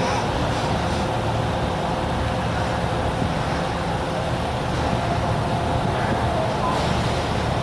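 High-speed ferry's engines and waterjet propulsion running steadily: a continuous low rumble with a faint steady whine over it.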